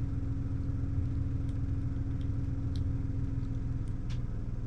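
Steady low motor hum with a throbbing rumble beneath it, under a few faint plastic clicks from a toy shotgun being worked into an action figure's hand.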